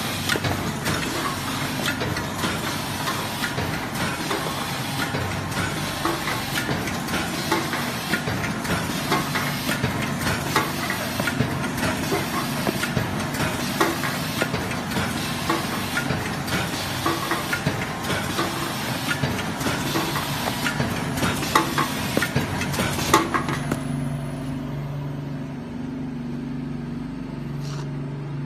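HT960 automatic pleated wrapping machine for round soaps running: a dense, continuous clatter of rapid mechanical clicks and knocks. The clatter cuts out suddenly about three-quarters of the way through, leaving a quieter low hum.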